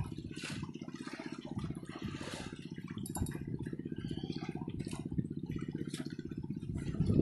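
Boat engine running steadily, a fast even low pulsing, with water splashing over it.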